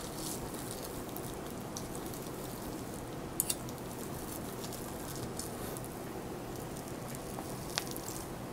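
Close-miked eating sounds: a person chewing handmade German-style ham, wet and crackly over a steady background hiss, with a quick double click about three and a half seconds in and one more click near the end.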